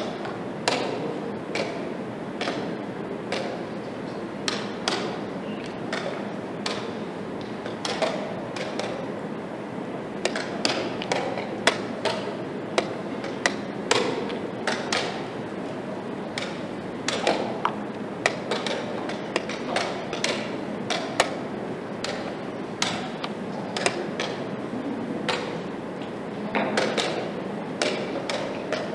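Quick, uneven clacks of wooden chess pieces being set down and captured on a wooden board, mixed with slaps on the chess clock's buttons: blitz play in a time scramble with only seconds left on the clock. Steady background noise.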